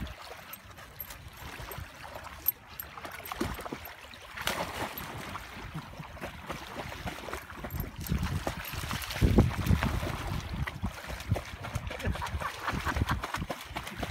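Dogs splashing as they wade and swim through shallow lake water, with irregular sloshes and light lapping of the water.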